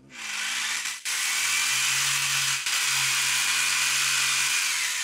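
Corded DeWalt reciprocating saw running steadily with its blade end pressed against a rubber tire, used as a concrete vibrator to settle wet concrete under the tire bead rather than to cut. The buzz breaks off for an instant twice and winds down near the end.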